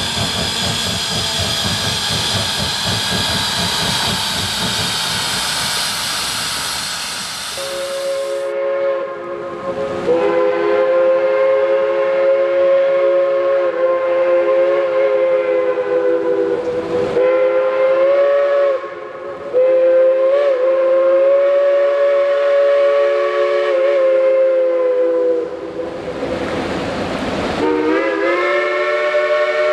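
Geared Shay steam locomotives working a train, with rapid exhaust beats and loud steam hiss. Then, from about eight seconds in, a chime steam whistle blows long blasts of several notes sounding together. The blasts break off briefly a few times, and the whistle slides up in pitch as it opens again near the end.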